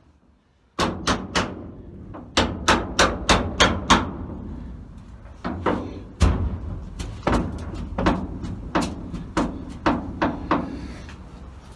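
Runs of quick hammer blows on metal, about three to four a second with a short pause in the middle and one heavier strike, knocking at a seized door hinge pin on a 1936 Chevy coupe that will not come out.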